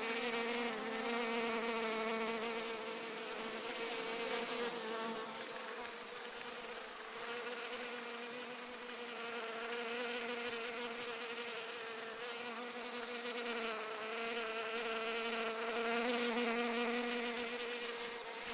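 Many bees buzzing over flowering phacelia, a steady hum that swells and fades every few seconds: bees working the field in a nectar flow after rain.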